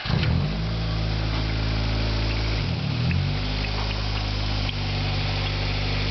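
1991 Acura Integra's 1.8-litre twin-cam four-cylinder engine idling, heard from the open engine bay. The engine speed wavers just after the start and again about three seconds in, then settles to an even idle. It is a healthy-running engine, by the owner's account.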